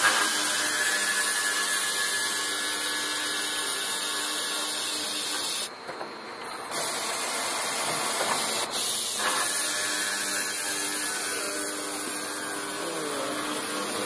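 Automatic circular saw machine for metal bar stock running, a steady mechanical whine with hiss. The sound drops briefly about six seconds in.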